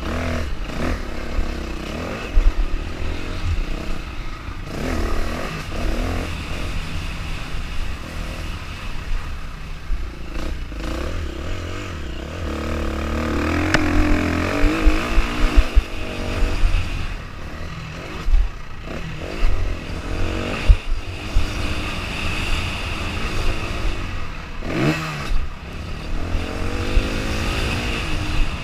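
Off-road motorcycle engine revving up and falling back as the bike is ridden over a dirt track, over a heavy low rumble, with knocks and rattles from the rough ground.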